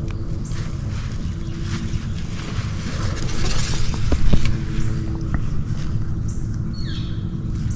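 Low steady rumble of a distant engine with a faint hum throughout. About three to four seconds in, a swell of rustling with a soft knock as a compound bow is shifted in hand.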